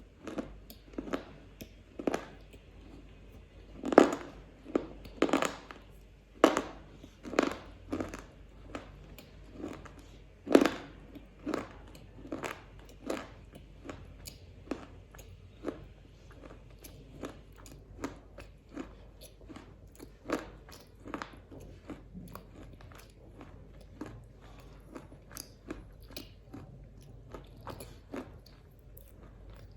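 Close-miked biting and chewing of a black (dark chocolate) KitKat wafer bar, crisp crunches one after another. A few loud bites come in the first third, then quicker, softer chewing crunches at about one to two a second.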